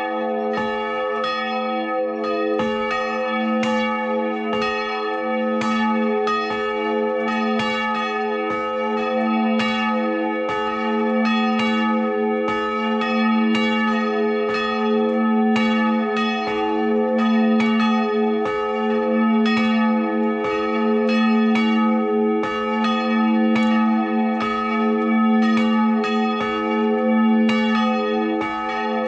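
Two swinging church bells rung together in full peal, heard up close in the belfry: the 700 kg St. Barbara bell cast in 1614 by the Schrötter founders, tuned to a1, and the smaller 2016 St. František bell tuned to e2. Their clapper strokes overlap in a continuous stream over a steady deep hum.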